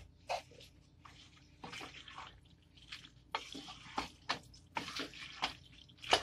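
A spatula mixing boiled macaroni with sauce in a pan: irregular wet squelches and scrapes against the pan.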